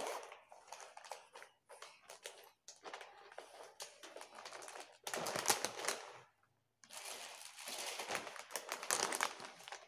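Clear plastic packaging crinkling and rustling as a zippered bag is opened and folded clothes wrapped in plastic are pulled out. The rustling comes in irregular bursts, loudest in two stretches from about halfway in, with a short pause between them.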